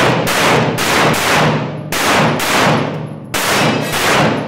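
A rapid string of semi-automatic pistol shots, about six, fired mostly in pairs about half a second apart, each shot ringing on in echo.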